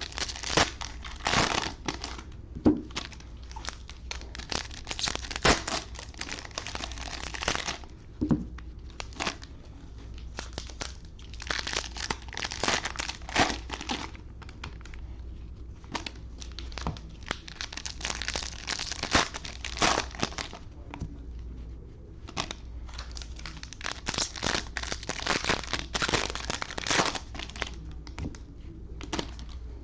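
Plastic cello pack wrappers of Panini Prizm football cards being torn open and crinkled by hand, in bursts of a few seconds with short pauses between packs.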